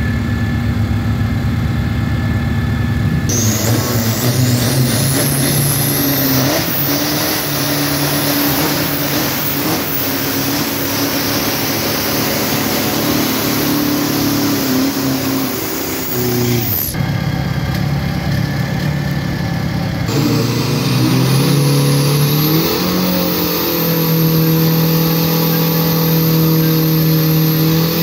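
Drag-racing pickup truck idling, then revved hard into a burnout for about thirteen seconds, its rear tyre spinning and squealing on the wet track before the revs drop back. From about 20 s the engine is revved hard again and held at steady high revs, with a thin rising whistle.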